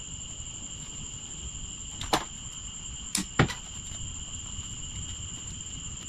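A few sharp plastic clicks and knocks from handling Coolshirt hose quick-release connectors: one about two seconds in, then two more just after three seconds, the last the loudest. A steady high-pitched whine runs underneath.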